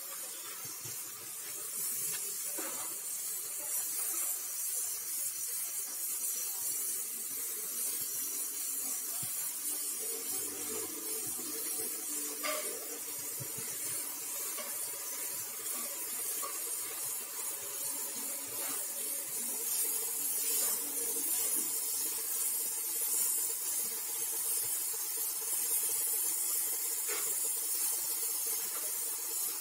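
Steady hiss of compressed air and atomised paint from a gravity-feed spray gun spraying a car's front bumper, with a few faint clicks.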